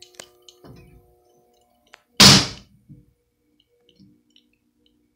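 A few small clicks and rattles, then one loud thunk about two seconds in, like a hard knock or a cover shutting, followed by a faint steady hum.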